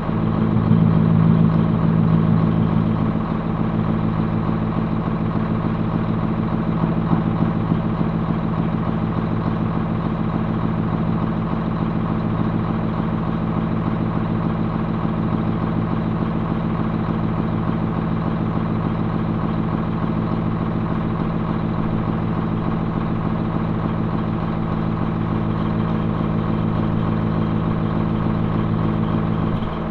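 Tractor engine running steadily under load while pulling a round hay baler through the windrows.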